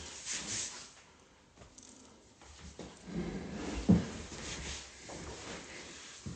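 Handling noise from a phone held close and moved about: scattered rustles and light knocks, the loudest a dull thump about four seconds in, with a sharp click near the end.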